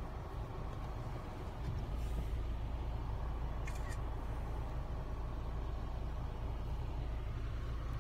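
Steady low rumble of a car's engine and tyres heard from inside the cabin as the car moves slowly. A few short clicks come about halfway through.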